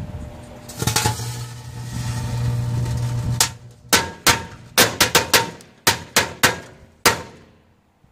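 Firecrackers going off inside a running microwave oven: a loud buzz with crackling for a couple of seconds, then about a dozen sharp bangs in quick, uneven succession over the next four seconds.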